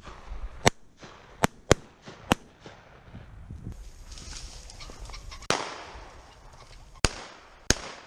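Shotgun shots: a series of sharp reports, about seven in all, some in quick pairs, with a trailing echo after the one about five and a half seconds in.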